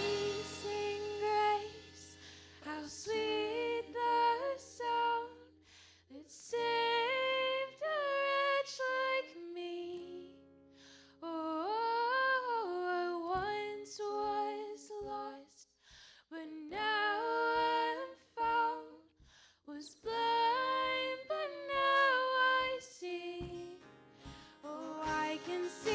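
Women singing a slow worship song line by line, with short gaps between the lines, to strummed acoustic guitars and a low held bass note under some of the lines.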